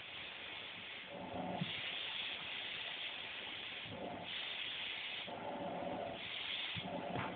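Vacuum cleaner running, its rushing hiss swelling and fading in turn with a lower hum about every two seconds, with a short knock near the end.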